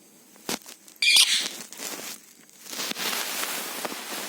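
Pet parrot gnawing and crunching food with its beak: a click, a short sharp high burst about a second in, then a stretch of scratchy crunching.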